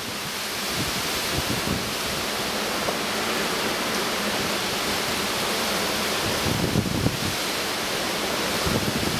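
Hurricane wind and heavy rain in the trees: a steady rushing hiss, with wind gusts buffeting the microphone about two-thirds of the way through and again near the end.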